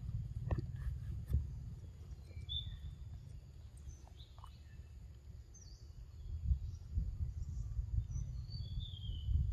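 Outdoor ambience: a steady low rumble of wind on the microphone, with a few short, high bird chirps, some falling in pitch, and a couple of light clicks about a second in.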